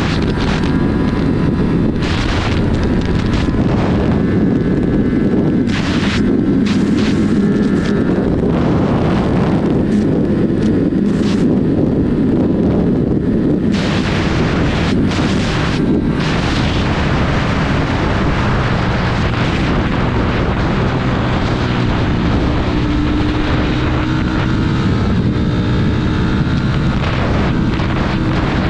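Sport motorcycle's engine running hard at highway speed under heavy wind buffeting on the microphone, its engine note climbing in the last few seconds.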